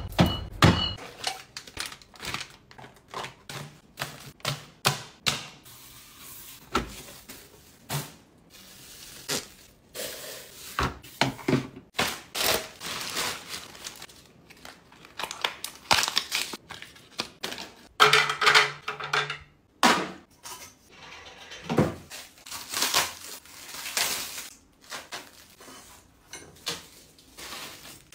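Close-up household handling sounds: plastic drink bottles and cans clicking and tapping as they are set onto fridge shelves, then plastic packaging crinkling and rustling as items are unwrapped and put away. A brief low buzz comes about two-thirds of the way in.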